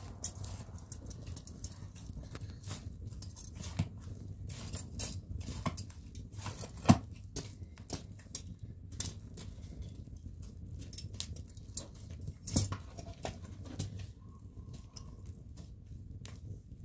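Small open wood fire crackling with irregular sharp pops, two louder pops near the middle, while dough is kneaded by hand in a metal bowl.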